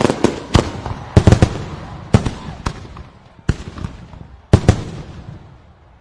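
Fireworks going off: a fast cluster of sharp bangs and crackles, then single bangs further apart, including a quick double bang, each dying away, the whole fading toward the end.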